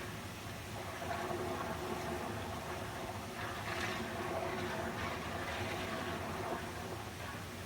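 Water flowing steadily, a continuous rushing hiss with small surges.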